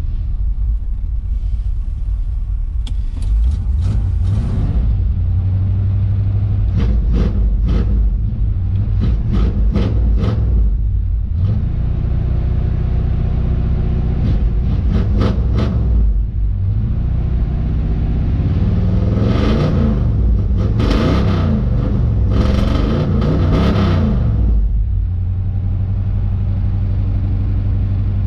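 1978 Suburban's engine idling while warming up after sitting all winter, revved in short throttle blips every few seconds. About twenty seconds in comes a longer run of revs rising and falling, before it settles back to a steady idle.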